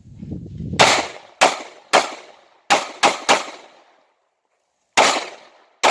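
A string of about eight pistol shots fired in uneven groups during a combat pistol stage: three about half a second apart, three in quick succession, then after a pause of over a second, two more. Each shot is a sharp crack with a short echo trailing off.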